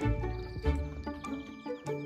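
Instrumental background music with a bass line and repeated struck notes.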